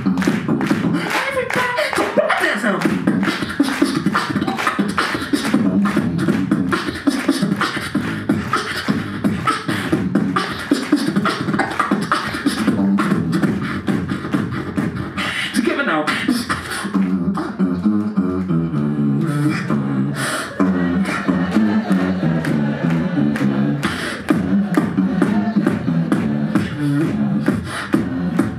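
Live beatboxing through a PA: a fast drum-like beat of sharp mouth clicks over a low vocal bass line. About halfway through, the high clicks thin out for several seconds and a bass line stepping up and down comes to the front.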